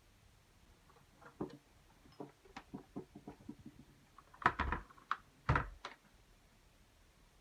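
Light clicks and knocks of small hard plastic parts being handled, a few at a time, with a cluster of louder knocks about halfway through.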